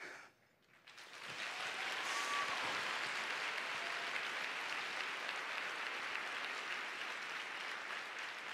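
Large audience applauding in a hall, swelling up about a second in and then holding steady.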